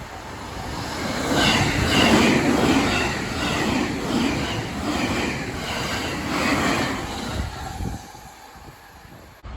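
A train passing close over a level crossing: its running noise builds over the first two seconds, stays loud with a repeating clatter of wheels on the rails, then fades away near the end. As it fades, the crossing's warning bell can be heard ringing faintly.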